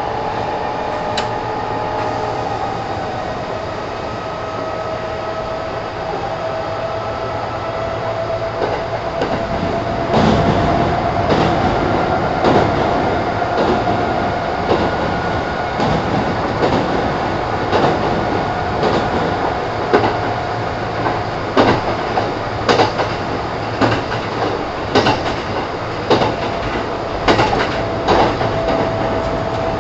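Kintetsu 1000 series electric train heard from inside the car while it runs between stations. A steady motor whine rises slowly in pitch as the train gathers speed. From about ten seconds in, a louder rumble sets in, with the wheels clacking over rail joints every second or so.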